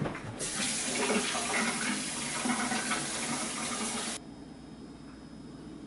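Water running from a tap, turned on about half a second in and shut off abruptly about four seconds in.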